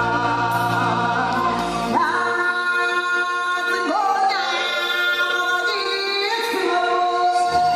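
Live stage music: a woman singing long held notes that slide between pitches. A low drone sounds under her for the first two seconds and comes back near the end.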